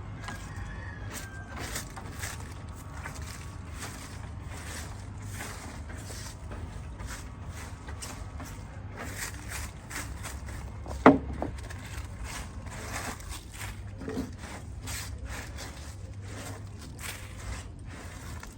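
Scattered light knocks and clicks of work on a building site, over a steady low rumble, with one sharp knock about eleven seconds in.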